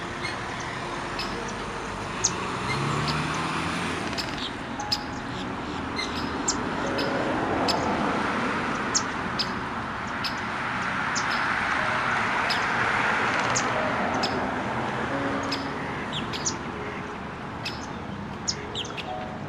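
Birds chirping: short, sharp high notes every second or so, over a steady rushing noise that swells twice and fades.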